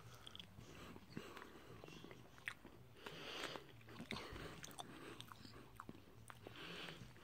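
Faint chewing of a piece of Spam, with soft irregular mouth clicks.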